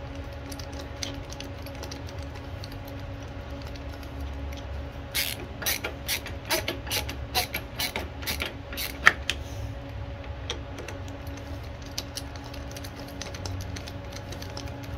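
Hand screwdriver ratcheting as screws are driven into a lawn mower engine's plastic air filter base: a run of sharp clicks about two or three a second through the middle, the loudest near the end of the run, over a steady low hum.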